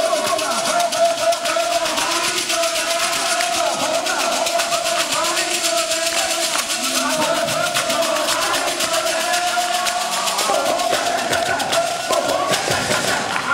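Live traditional music: a group of voices singing over a fast, even beat of hand percussion.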